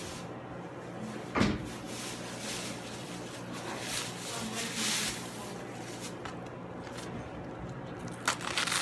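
A sharp thump about a second and a half in, then scattered rustling and handling noises over a steady low hum, with quick clicky sounds starting near the end.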